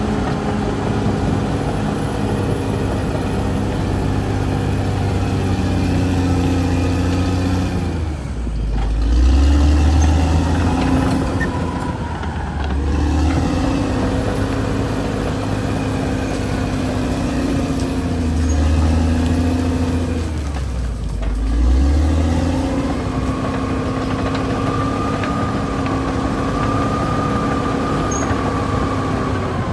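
Caterpillar D6R XL bulldozer's diesel engine running under load. Twice the engine note drops and then surges louder as the load changes. A higher whine sounds along with it in the last third.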